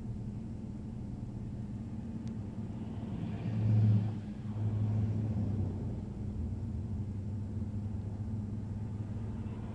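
Oncoming pickup truck driving past close, its engine and tyres swelling to the loudest point about three and a half seconds in and fading by about six seconds. Underneath is a steady low hum, heard from inside a stopped car.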